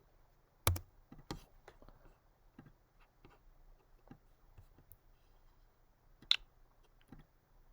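Scattered clicks of a computer mouse and keyboard as code is put together on screen: a few sharper clicks about a second in and one around six seconds, with fainter ones between, over a faint steady hum.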